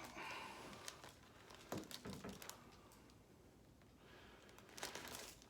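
Quiet rustling and handling noise, with a few soft sharp knocks about two seconds in and again near the end.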